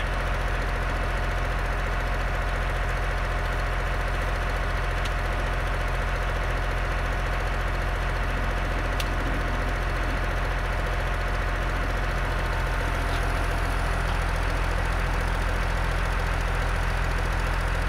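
John Deere 544G wheel loader's diesel engine idling steadily.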